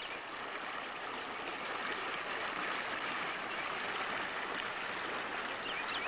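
Fast, broken water of a trout-stream riffle, rushing steadily.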